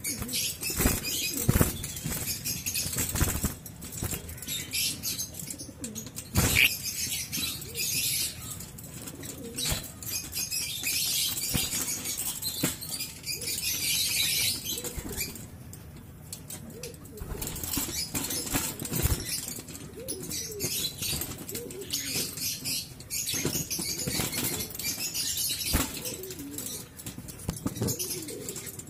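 Young peach-faced lovebirds flapping their wings, with bouts of high chattering calls and a few sharp knocks.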